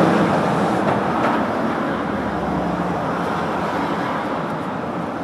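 Steady rushing background noise that eases off slightly.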